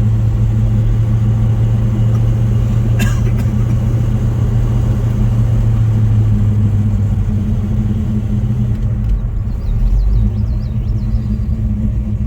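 Freshly rebuilt Pontiac 400 V8 of a 1970 GTO running while driving, a steady low drone that eases into a rougher low rumble about seven seconds in. A single sharp click about three seconds in.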